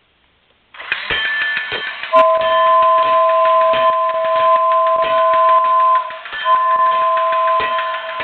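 Battery-operated 1988 Toy State 2-6-0 Mogul toy steam train starting up about a second in and running on its track, with irregular clicks and rattles from the chuffer and wheels. Its two-note whistle (a New Bright air whistle) sounds one long blast, stops briefly, then sounds again.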